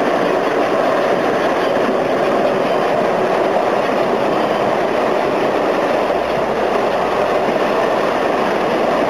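American Flyer S gauge model trains running on the layout's track: a steady whir and rolling clatter of wheels and motors.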